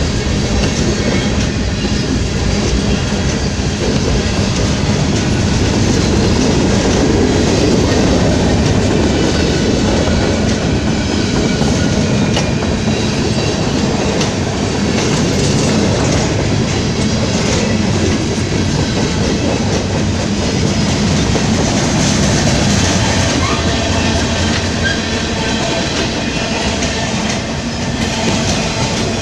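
Freight train cars rolling past at steady speed: a continuous, even noise of steel wheels on the rails.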